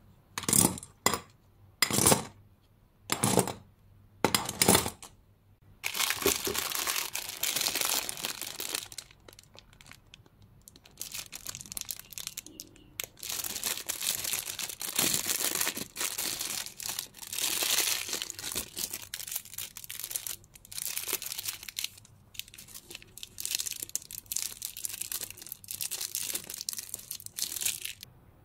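Clear plastic packaging sleeve crinkling as makeup brushes are handled and unwrapped from it. It opens with about five short loud crackles in the first few seconds, then near-continuous crinkling from about six seconds in, with brief pauses.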